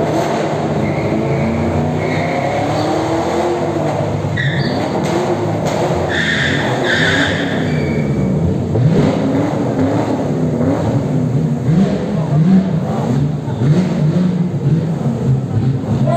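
Chevrolet Camaro drifting in tight circles, its engine revving up and down over and over. Its tyres squeal in short bursts, most strongly between about four and eight seconds in.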